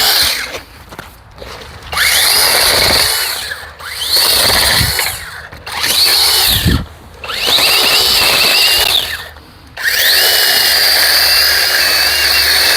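Small 6-inch battery-powered pruning chainsaw running in five short trigger-pulls, its electric motor whining up to speed and winding down each time, while it cuts limbs off a balsam fir. The last run is the longest.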